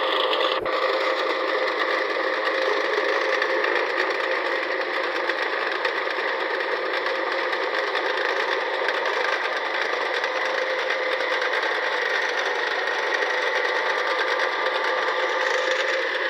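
A machine running steadily with a fast, even clatter, with a sharp click about half a second in.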